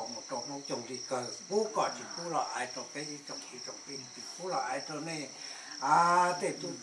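Crickets keeping up a steady high-pitched chirring, under people's voices talking, which grow loudest near the end.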